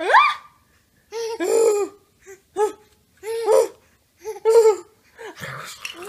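Baby laughing in a string of short belly-laugh bursts, about one a second, after a high rising squeal at the start.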